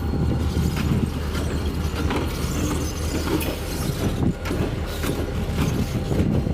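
Steady low rumble of a running vehicle engine with a noisy haze over it, broken by scattered short clicks and knocks.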